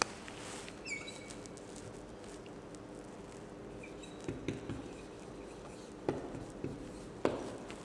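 Marker writing on a whiteboard: short squeaks and light taps of the tip as words are written.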